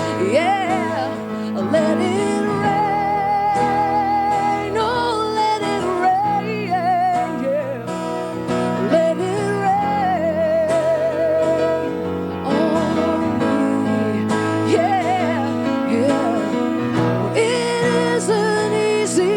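Live acoustic pop song: acoustic guitar accompanying a woman singing long held notes with vibrato.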